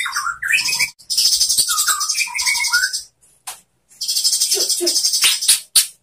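White-rumped shama singing in phrases: clear, gliding whistled notes mixed with a rapid, high, buzzy chatter. The song breaks off briefly a little after three seconds in, and a few low notes come around five seconds in.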